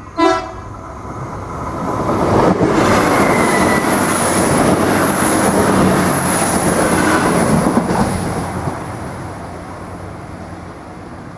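Irish Rail 22000 class diesel multiple unit passing close by: the noise of its wheels on the rails and its underfloor diesel engines builds over a couple of seconds, holds loud for about five seconds with a high steady whine on top, then fades as the train moves away. Just at the start there is a brief, loud pitched note.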